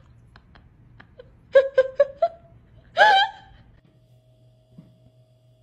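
Siberian husky vocalizing: four quick yips in a row about a second and a half in, then one wavering, howl-like whine about three seconds in.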